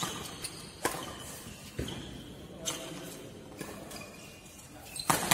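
Badminton racket strings striking the shuttlecock in a fast doubles rally: sharp cracks roughly once a second, the loudest pair near the end, each ringing briefly in the hall.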